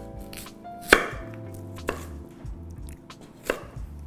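Chef's knife cutting through Korean radish and knocking on a wooden cutting board: a few separate, irregularly spaced strokes, the sharpest about a second in.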